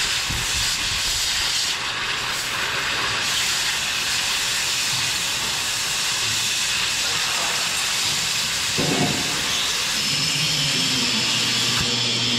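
Oxy-fuel cutting torch cutting through steel plate: a steady hiss from the flame and cutting-oxygen jet.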